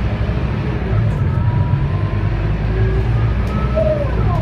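Scania K280UB city bus running under way, heard from inside the passenger cabin: a steady low rumble from its 9.3-litre five-cylinder Scania DC9 diesel and drivetrain, with faint whining tones that slide in pitch, one falling near the end.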